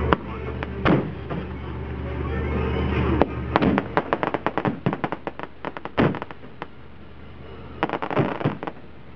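Aerial firework shells bursting overhead. A few single bangs come first, then about three and a half seconds in a rapid run of crackling pops, one louder bang about six seconds in, and another brief flurry of pops near the end.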